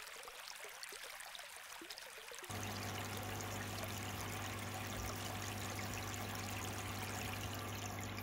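Aquarium water running and trickling steadily; about two and a half seconds in it turns louder and a steady low hum joins the water sound.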